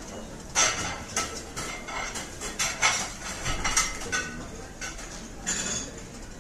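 Dishes and cutlery clattering in a restaurant or kitchen: a dozen or so irregular clinks and knocks, a few of them ringing briefly.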